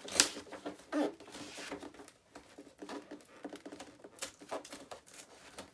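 Cardboard packaging being pried and torn open by hand: irregular crackles, scrapes and clicks, with the sharpest snap about a quarter second in.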